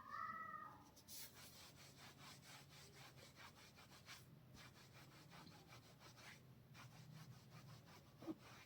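Fingers rubbing through oiled hair and scalp in quick, rhythmic strokes during a head massage, over a faint steady hum. A brief high-pitched sound is heard at the very start.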